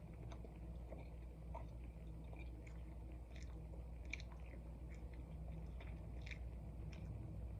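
Close-miked chewing of a soft pancake roll-up, with scattered wet mouth clicks and smacks over a steady low hum.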